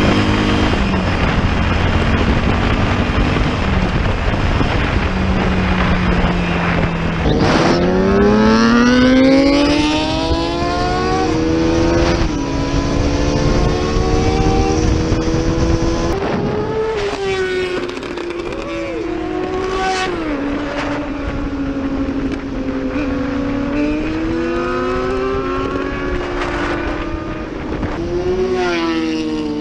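Motorcycle engines accelerating and revving, the engine note climbing steeply about a quarter of the way in and then rising and falling again and again through the second half, over wind noise on the microphone.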